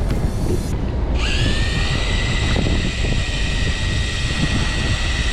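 Electric fishing reel's motor starting up about a second in with a quick rising whine, then winding in line at a steady high pitch after a bite, over a steady low rumble.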